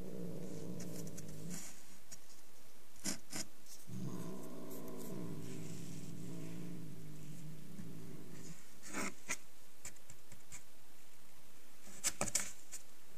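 Domestic cat growling low and long from inside a cardboard box, the warning of an angry, defensive cat: one growl trails off about a second and a half in, and a longer one runs from about four to eight and a half seconds. Short sharp sounds break in a few times, with a quick cluster near the end.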